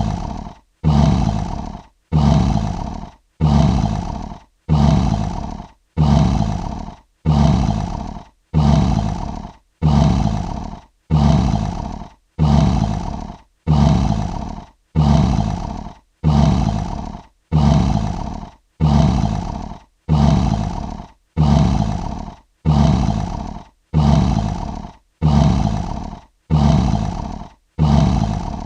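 Lion roar sound effect: the same short roar, about a second long, repeated in a loop roughly every 1.2 seconds, each one starting loud and fading out before the next.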